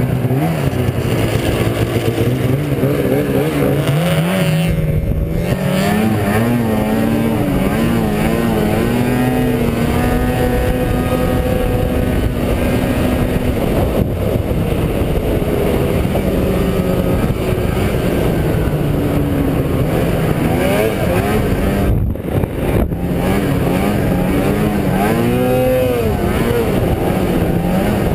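Arctic Cat snowmobile engine running under way, its pitch rising and falling as the throttle is worked. The sound dips briefly about three-quarters of the way through.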